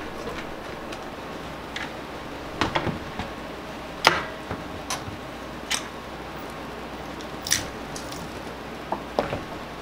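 VSETT 10+ electric scooter rolling slowly over a hardwood floor: scattered sharp clicks and short squeaks over a steady low hiss, with no motor whine to be heard.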